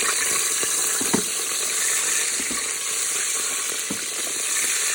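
Oil sizzling steadily in a pot on the sauté setting, with a few light knocks about one, two and a half, and four seconds in.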